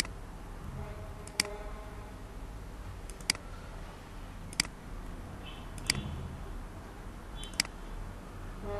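Computer mouse clicks: single sharp clicks every one to two seconds, five in all, some heard as a quick press-and-release double, over a steady low hum.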